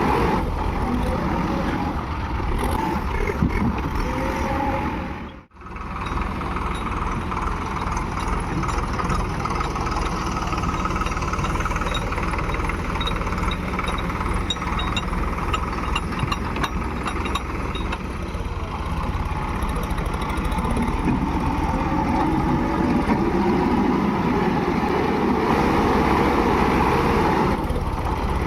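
Diesel engine of heavy machinery running steadily, cut off for a moment about five and a half seconds in.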